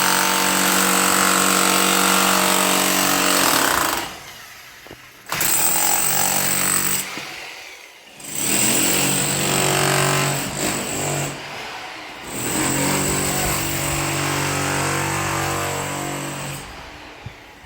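A loud motorized machine running in spells, a rough noise over a steady hum, stopping for a second or so about four seconds in and again near eight seconds, then fading near the end.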